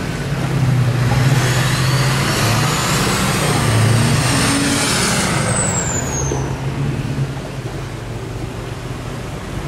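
H1 Hummer's engine working hard under load as the truck crawls up a steep rocky hill climb, its pitch shifting with the throttle, with a high whine that rises and then falls away midway. It gets somewhat quieter after about seven seconds.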